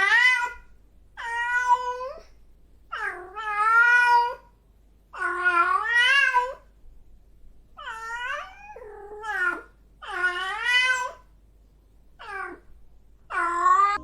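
Cat meowing over and over: about eight drawn-out meows, one every second or two, each wavering in pitch, with the last two shorter.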